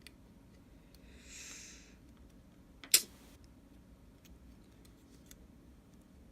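Small-part handling during a phone repair: faint ticks of tools and parts, a brief soft rustle about a second in, then one sharp click about three seconds in.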